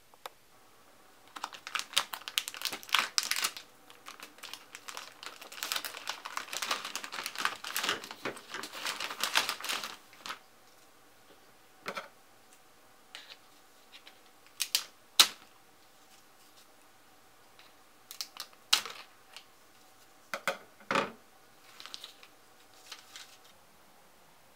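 Plastic packet of dried kombu crinkling and crackling as the stiff dried kelp is handled and pulled from it, then a series of separate sharp, crisp snaps as the dried kelp is cut into pieces.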